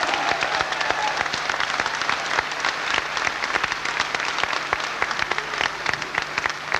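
Audience applauding, dense clapping that thins out toward the end.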